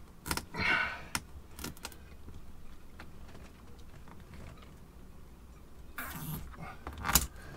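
Electrical cables being handled and pushed into place along a cable run: scattered rustles and light clicks, with a sharp click about seven seconds in.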